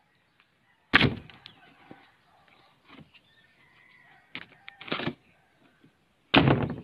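Two loud thuds, about a second in and near the end, with a couple of lighter knocks between and faint bird chirps in the background.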